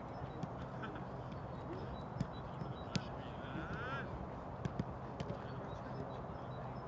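Outdoor football training-pitch ambience: a steady low rumble with scattered sharp knocks of footballs being kicked, and faint distant voices.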